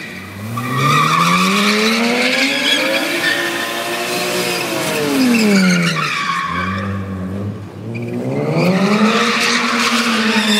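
BMW E36's engine revving hard during donuts, its pitch climbing, holding and dropping as the spinning rear tyres screech. The revs fall back to a low idle about six and a half seconds in, then climb again near the end.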